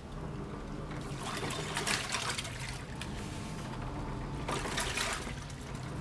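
Panasonic top-load washing machine in its wash cycle, the pulsator churning clothes in water: water sloshing in swells over a steady low motor hum.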